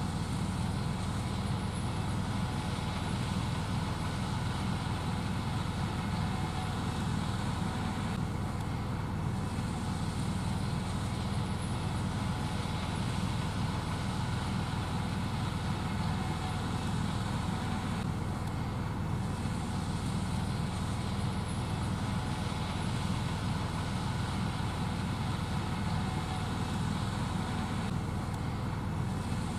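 Gleaner S78 combine harvester running steadily under load while harvesting and shelling corn.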